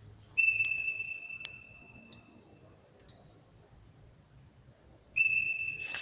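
Two electronic beeps from the Siviko ACT 150 automated cable tester, each a clear high tone that starts abruptly and fades away over about two seconds, the second coming about five seconds in. A few sharp clicks sound between them.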